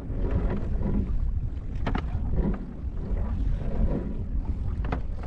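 Wind rumbling on the microphone with sea and hull noise of a small boat out on the water. A sharp knock sounds about two seconds in and another near the end.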